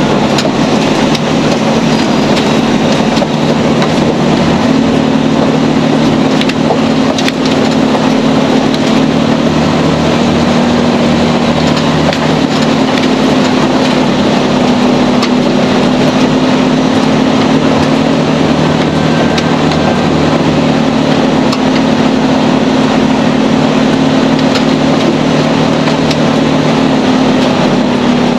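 Mercedes-Benz Actros SLT heavy-haulage truck driving along a gravel forest track, heard from inside the cab: a steady diesel engine drone under an even wash of rolling and cab noise, with a few small knocks.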